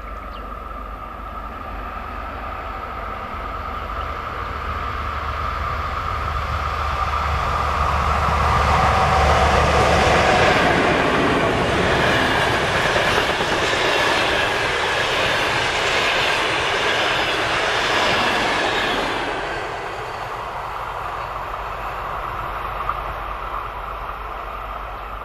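Passenger train passing at speed on an electrified main line, its coaches' wheels clattering over the track. The sound swells as the train draws level, stays loud for several seconds while the coaches stream by, then drops away about twenty seconds in.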